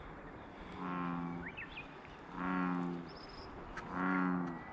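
American bullfrog calling: three deep, drawn-out croaks, each under a second long and about a second and a half apart.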